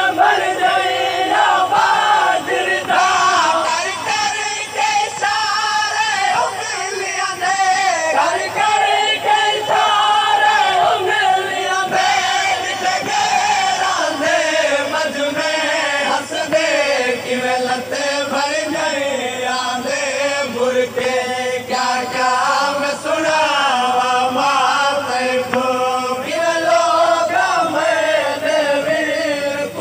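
A man singing a noha, a Shia mourning lament, amplified through loudspeakers, with a crowd of men chanting along in chorus.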